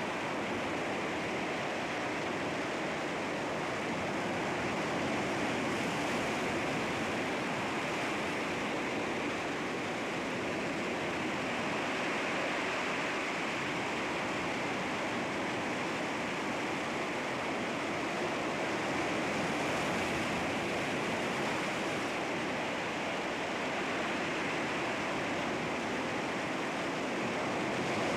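Sea waves washing against rocks in a steady, continuous rush of surf that swells and eases gently.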